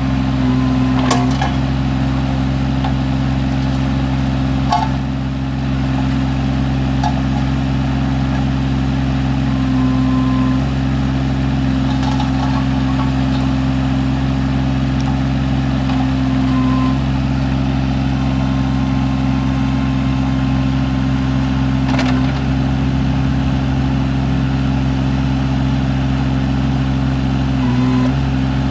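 Kubota three-cylinder diesel engine of a 1994 Kubota KX41 compact excavator running steadily, with a hydraulic whine that comes and goes as the boom and bucket are worked. A few short knocks stand out over the engine.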